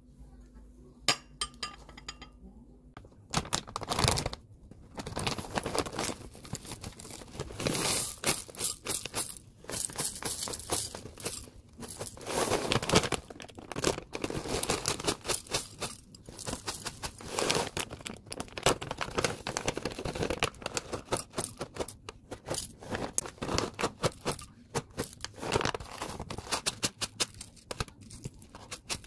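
Packaging crinkling and rustling while granola, nuts and cacao nibs are poured and sprinkled into a glass bowl, with small pieces clicking against the glass. The first few seconds hold only a few light clinks and a faint low hum before the rustling starts.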